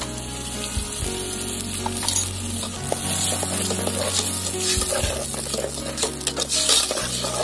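Tomato sauce sizzling in an aluminium pot while a steel ladle stirs it, scraping and clinking against the pot, with the clinks busier in the second half.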